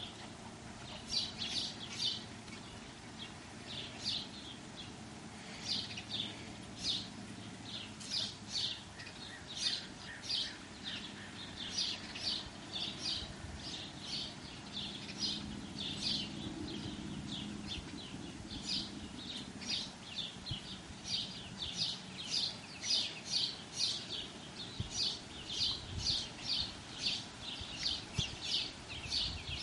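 A small bird chirping over and over outdoors: short, high chirps about once or twice a second, coming faster and more regularly in the second half.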